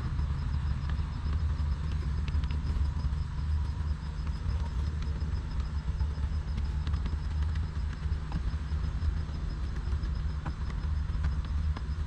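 A steady low rumble, with a few faint scattered clicks of a 5mm Allen key turning the short throw shifter's mounting screws.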